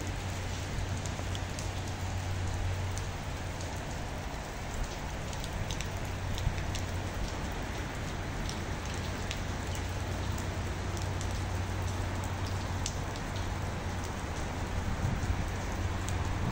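Heavy rain falling steadily, a continuous hiss with many sharp drop hits, over a low steady rumble of wind on the microphone.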